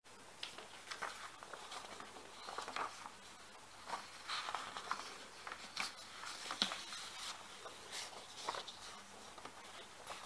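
Sheets of printer paper rustling and crinkling as they are handled, bent and lifted, in irregular short bursts.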